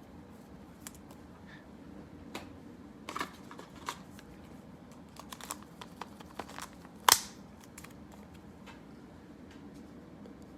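Baseball cards being handled and slid into plastic sleeves: scattered light rustles and clicks, with one sharper click about seven seconds in.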